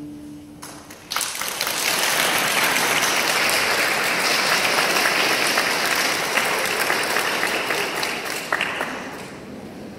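Audience applauding. The clapping breaks out about a second in as the last held note of the music dies away, stays full, and tapers off near the end.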